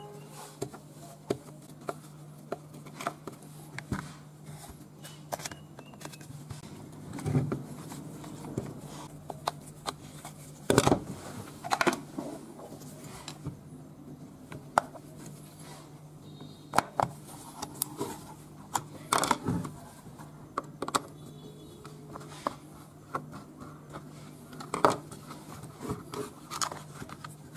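Irregular clicks, knocks and scrapes of hard plastic and metal as an old electric hair clipper is taken apart by hand: a screwdriver working in its screws, then the blade assembly and casing being pried and pulled loose. A steady low hum runs underneath.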